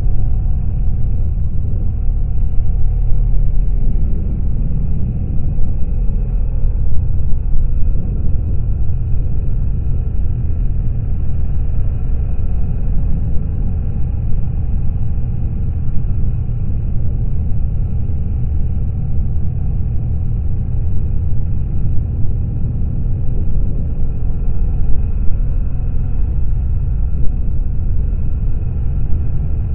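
BMW R1200GS boxer-twin motorcycle under way: a steady low rumble of engine mixed with wind and road noise.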